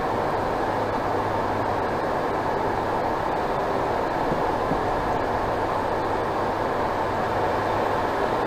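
Steady cockpit noise of a business jet in flight: a constant rush of air with a low hum underneath.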